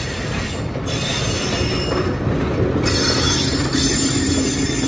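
Diesel locomotive 958 passing at close range, its engine running as it pulls a passenger train, followed by the passenger cars' wheels rolling over the rails. The sound grows a little louder about three seconds in as the cars pass closest.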